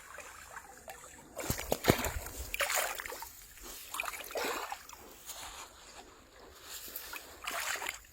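Water splashing and sloshing in irregular bursts, with a few sharp splashes about a second and a half to two seconds in.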